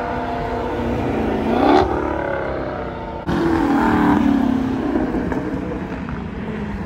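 Car V8 engine revved twice. The pitch climbs to a peak a little under two seconds in and falls back, then after an abrupt break about three seconds in, a second rev winds down.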